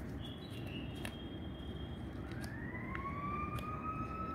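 A faint emergency siren wailing over a steady low hum: a held high tone, then about halfway through a wail that rises in pitch and levels off. A few faint clicks of paper being handled.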